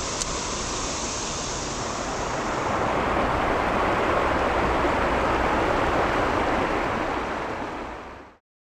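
Creek water rushing and splashing over a shallow rocky ledge, a steady rush that grows louder about three seconds in and fades out near the end.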